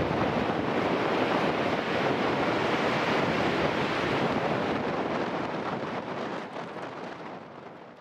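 Strong wind buffeting the microphone, over the wash of choppy sea; a steady roar that fades out over the last few seconds.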